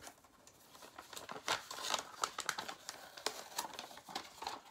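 Paper envelope and the sheets inside it being handled, opened and pulled out: irregular rustling and crinkling of paper, picking up about a second in.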